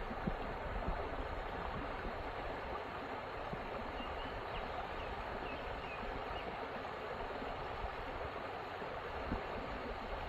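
Creek water flowing steadily over rocks, an even rushing babble with a low unsteady rumble underneath. A few faint high chirps come about four seconds in.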